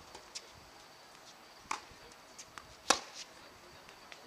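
Tennis balls struck by rackets and bouncing on a hard court: a few sharp pops, the loudest nearly three seconds in.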